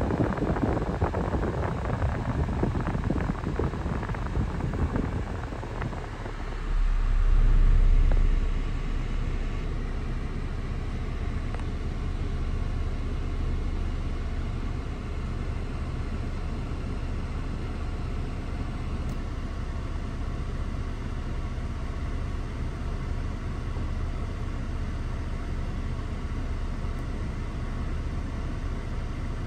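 Range Rover Velar engine idling, heard from inside the cabin as a steady low hum. A rushing noise fades out over the first few seconds, and a brief, louder deep rumble comes about seven seconds in.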